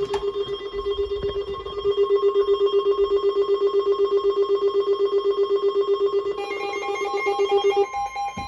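Electronic emergency alert tones: a low tone pulsing quickly and evenly for most of the time, joined near the end by a second, beeping pattern, then giving way to a steady higher tone.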